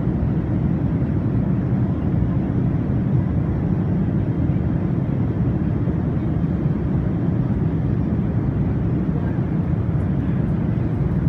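Airbus A380 cabin noise in flight: a steady, even low rumble of airflow and engines heard inside the passenger cabin.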